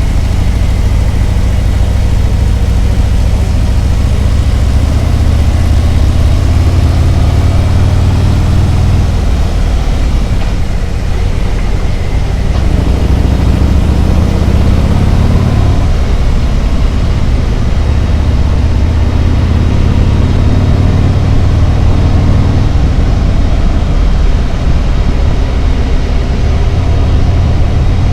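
Harley-Davidson Road Glide's V-twin engine running under way. The engine note dips about ten seconds in, then glides back up a few seconds later.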